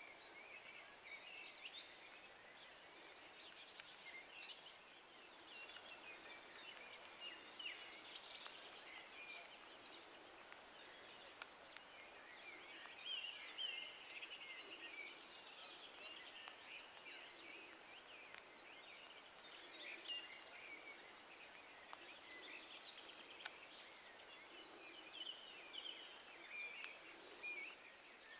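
Faint outdoor chorus of many small animal calls, short overlapping chirps over a light steady hiss, with soft lower calls every second or two.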